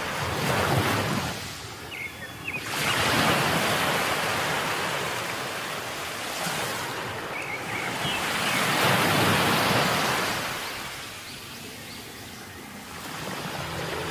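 Ocean surf breaking on the shore: a steady rushing that swells and ebbs, loudest about three seconds in and again about nine seconds in.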